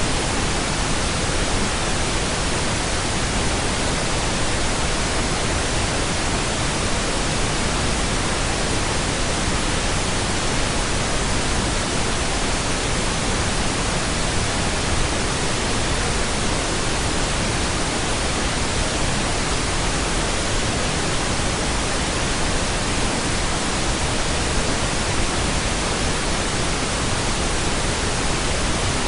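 Steady pink noise: an even, unchanging hiss across the whole range.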